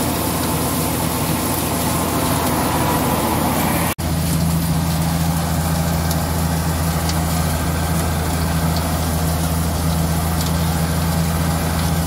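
Tractor-driven Maan thresher threshing soybeans: the Farmtrac tractor's diesel engine and the threshing drum run steadily. The sound cuts out for an instant about four seconds in.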